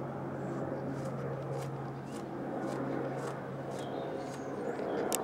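Steady outdoor background rumble with a constant low hum, of the kind made by distant traffic or a passing aircraft, with soft brief clicks scattered over it.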